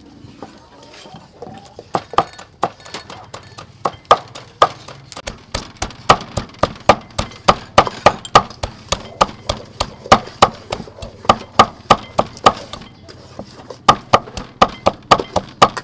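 Cleaver chopping fresh red chillies on a wooden chopping board: a run of sharp knocks, about two or three a second, starting about two seconds in, with a brief pause near the end.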